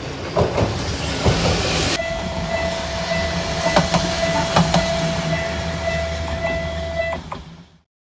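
An electric train running past a level crossing: low running rumble with sharp clicks of wheels over rail joints, and a steady high tone over it from about two seconds in. The sound cuts and fades out to silence near the end.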